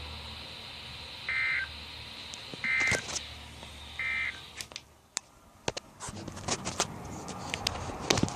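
Weather radio sending the Emergency Alert System end-of-message signal: three short, buzzy two-tone data bursts about a second apart over faint radio hiss, marking the end of the warning broadcast. A few sharp clicks and knocks follow in the second half.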